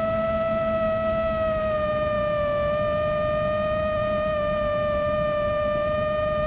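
6-inch FPV quadcopter's Brother Hobby Avenger 2507 1850 KV motors and carbon tri-blade props whining steadily at part throttle in fast forward flight, the pitch dipping slightly about two seconds in. A low wind rush sits under the whine on the onboard mic.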